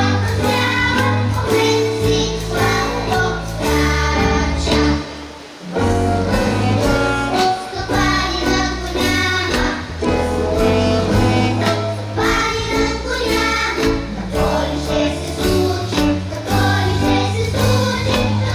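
Children's choir singing a song together over instrumental accompaniment with a steady bass line. The music dips briefly about five and a half seconds in, then carries on.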